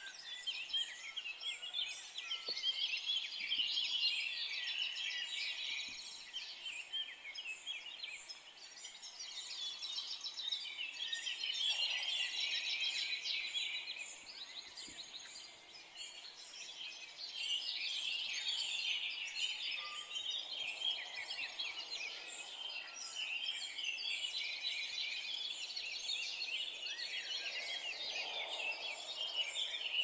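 Many small birds chirping and chattering together, a dense overlapping chatter that swells and eases every few seconds.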